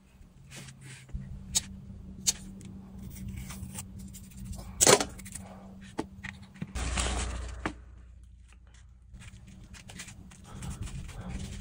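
Scattered clicks and taps of small objects being handled, with a sharp knock about five seconds in and a rush of noise lasting about a second soon after. A steady low hum runs beneath.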